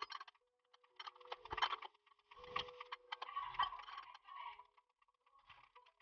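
Hand tools and metal parts clinking and rattling in short bursts at a motorcycle's rear wheel hub, with a brief metallic ring now and then.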